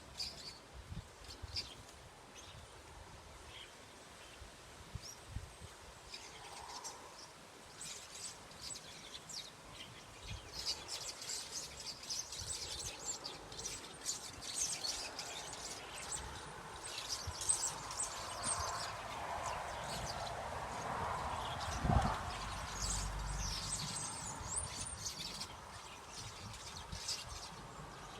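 Small birds chirping and twittering in quick short calls, busier after the first third. A soft noisy swell rises under them in the second half, and a single low thump comes about two-thirds of the way in.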